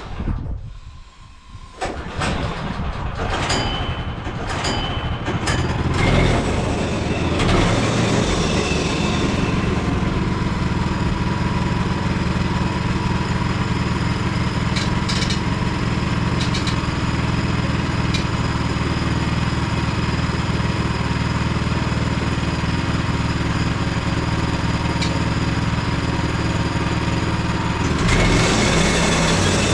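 Portable bandsaw sawmill's small gasoline engine starting up about two seconds in, after a few clicks, then running steadily as the mill works. The running note shifts near the end.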